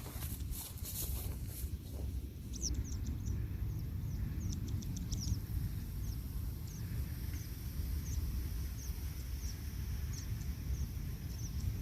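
Small birds giving short, high, falling chirps again and again over a steady low rumble. Footsteps or handling knocks come in the first two seconds, before the chirping starts.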